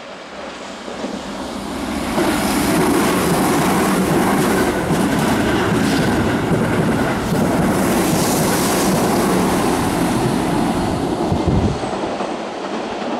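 Keihan 8000 series limited express train passing through a station at speed, wheels running over the points and rail joints. The sound builds as it approaches, stays loud and steady for about nine seconds as the cars go by, then drops away sharply near the end.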